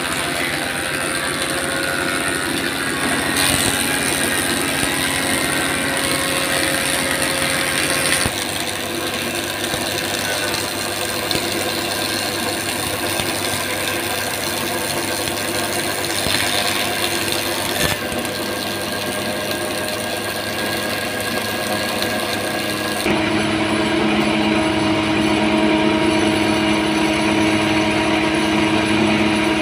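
Belt-driven wood thickness planer running while red meranti boards are fed through it, a continuous loud machine drone. The sound changes abruptly a few times.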